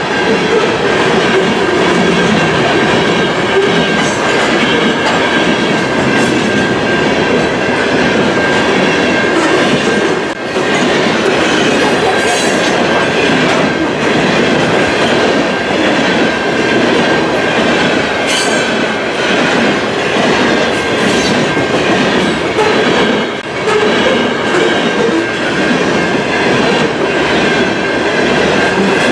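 Loaded freight hopper cars of a potash train rolling past at track speed, about 40 mph, with a continuous loud rumble and the clickety-clack of wheels over the rail joints. A steady high-pitched wheel squeal rides over the rumble.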